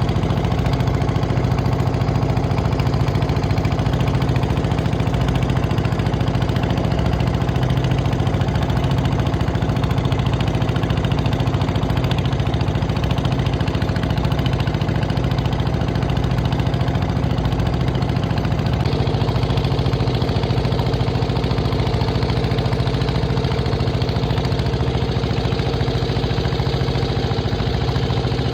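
A small engine running steadily at constant speed, with a low, even drone.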